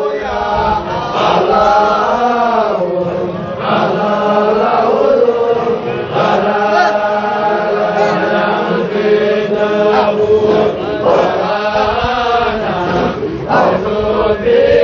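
Group of men chanting a Qadiriya Sufi dhikr together, a continuous sung Arabic refrain in many voices with a steady low held tone underneath.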